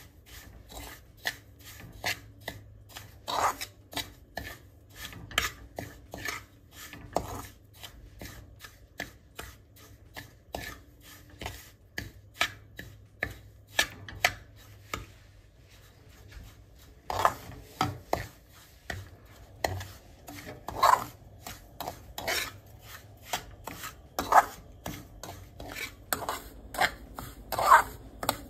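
A metal spatula stirring and scraping dry semolina (rava) as it roasts with ghee in a pan: repeated short scraping strokes, about one or two a second, with a short pause about halfway through.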